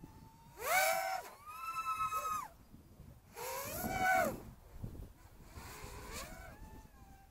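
Electric motors of a small radio-controlled acro aircraft whining in throttle bursts, the pitch rising and falling with each punch: three strong bursts in the first half and a weaker one about six seconds in.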